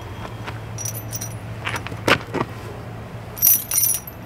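Steel triple tire chains on a semi truck's dual tires jangling and clinking as the links are handled and tucked in against the tread, with two sharper clanks about two seconds in. A steady low hum runs underneath.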